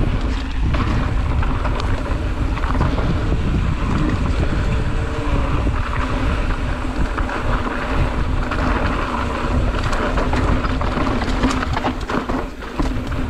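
Wind buffeting the camera microphone as a mountain bike rides fast along a dirt trail. The tyres rumble over the ground and the bike rattles over bumps.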